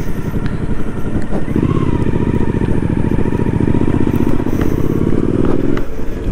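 Motorcycle engine running as the bike rides along a sandy dirt track. It picks up revs about a second and a half in and eases off briefly near the end.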